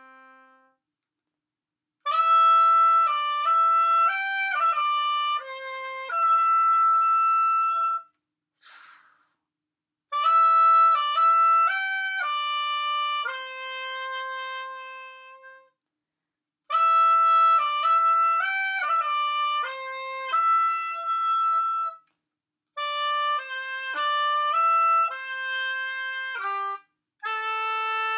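Solo oboe playing a slow, lyrical melody in phrases a few seconds long, with brief silent pauses between them. A short soft hiss falls between the first two phrases.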